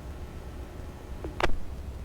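Handheld radio scanner's steady static hiss and low hum in the gap between fire-dispatch transmissions, with a short rising chirp ending in a sharp click about one and a half seconds in.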